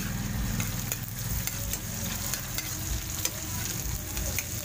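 Onion, garlic and ginger sizzling in hot oil in a wok while a metal ladle stirs them, scraping and clicking against the pan at an uneven pace.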